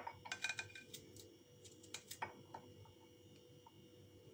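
Kitchen knife slicing garlic cloves held in the hand, with faint clicks as blade and slices tap the small glass dish beneath: a quick cluster of ticks in the first second, a few more about two seconds in.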